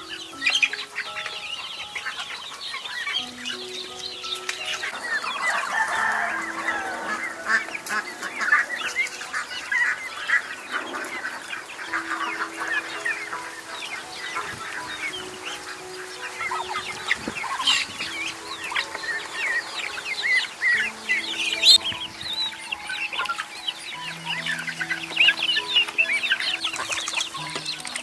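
A flock of chickens clucking with the high chirps of young birds, many short overlapping calls, over soft instrumental background music with long held notes.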